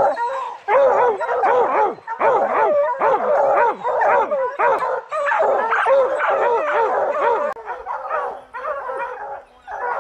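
A pack of bear hounds barking and bawling up at a treed black bear: several dogs' voices overlapping in a continuous din, easing somewhat in the last couple of seconds.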